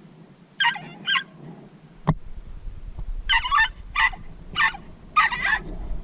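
Jack Russell terrier giving short, high yaps: two, then after a pause a quicker run of about six. A single knock about two seconds in.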